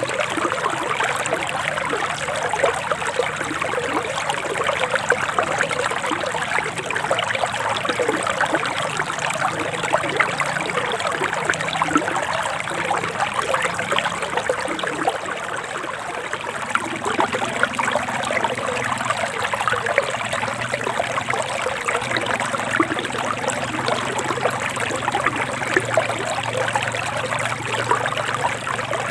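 Shallow forest stream running and trickling over stones, a steady burble of small splashes.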